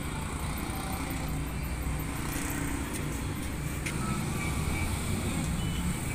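Steady low rumble of road traffic, with a couple of faint clicks about three and four seconds in.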